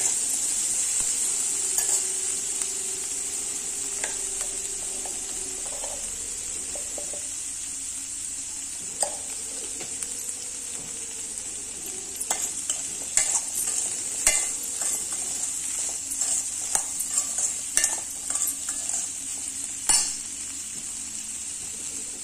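Boiled chickpeas with a tempering sizzling in a stainless steel pan while a perforated steel spatula stirs them. A steady sizzle runs throughout, and in the second half comes a run of sharp metal scrapes and clinks of the spatula against the pan.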